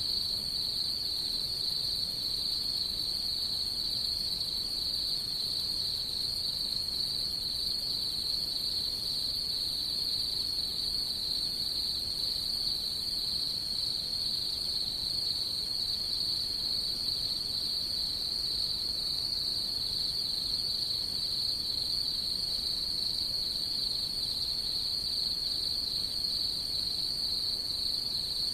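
Crickets singing at night in a steady chorus: a continuous high-pitched trill that never breaks, with a fainter, higher tone above it.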